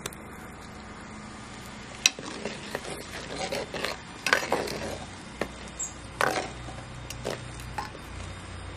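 Stainless steel slotted skimmer stirring sea snail curry in a clay pot, knocking and scraping against the pot in irregular clicks from about two seconds in.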